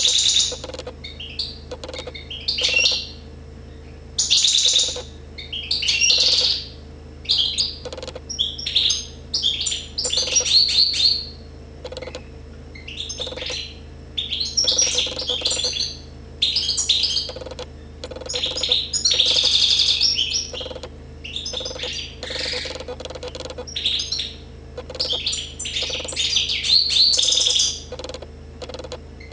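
Goldfinch singing: short, high twittering phrases of rapid notes, each lasting about a second, one after another with brief pauses.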